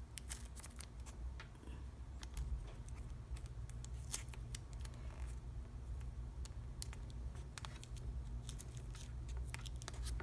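Faint scattered clicks and rustles of hands handling foam blocks and sticky tape, over a low steady hum.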